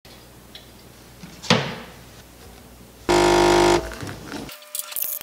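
A single thump about a second and a half in. Then, about three seconds in, a coffee machine's pump buzzes loudly for under a second, followed by fainter noise and a few sharp clicks near the end.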